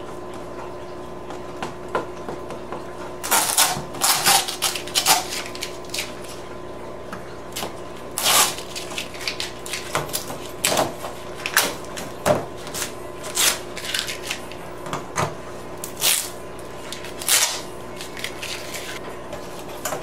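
Irregular plastic clacks and rattles as a multiwall polycarbonate sheet and a metal ruler are handled and moved on a table after the cut, starting a few seconds in, over a steady low hum.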